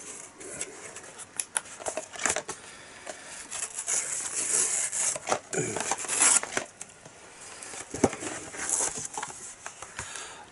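Cardboard parcel and packaging rustling and crinkling as DVDs are taken out of a delivery box, with a few sharp clicks and taps in between.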